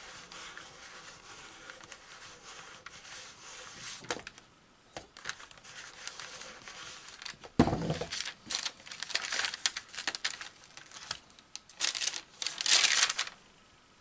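An iron sliding back and forth over greaseproof paper, a steady rubbing hiss, for the first few seconds. About halfway through comes a thump, then a run of crinkling and rustling as the greaseproof paper and the heat-fused Angelina fibre are peeled off the stamp.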